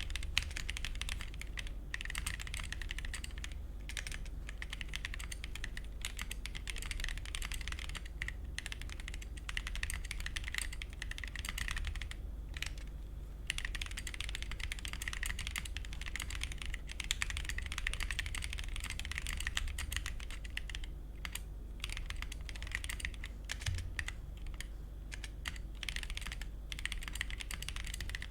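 Continuous typing on a MonsGeek M1 aluminium-case mechanical keyboard with Akko POM Pink linear switches and XDA-profile PBT keycaps: a fast, dense patter of keystrokes with a couple of brief pauses.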